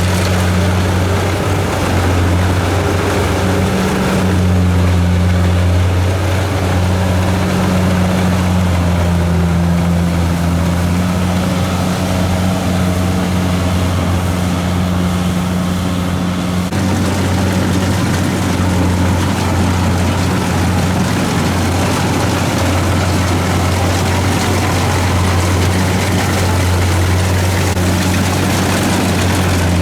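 Kubota DC-70 rice combine harvester's diesel engine running steadily under load, a constant deep hum.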